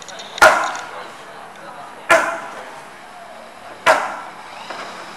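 Three hard smacks of boxing gloves landing on focus mitts, about 1.7 seconds apart. Each is a sharp crack that trails off in echo.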